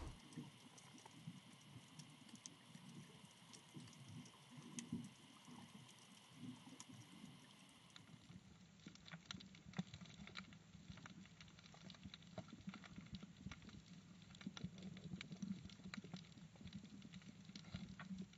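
Near silence with faint underwater ambience: scattered soft clicks and crackle over a low rumble, the clicks coming more often from about halfway through.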